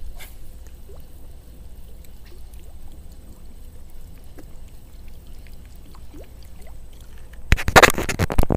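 Low wind rumble with scattered light ticks while a lure is reeled in on a baitcasting reel. Near the end comes the loudest sound: about a second of dense rustling and scraping as a hand rubs over the camera.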